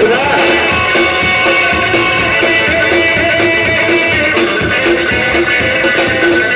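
Rockabilly band playing live, an electric guitar lead over upright bass with a steady beat and no vocals.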